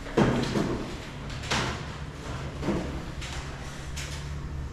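Knocks and scrapes from handling an air-conditioner unit during installation: a sharp knock with a scraping slide just after the start, a second about a second and a half later and a fainter one near three seconds in, over a steady low hum.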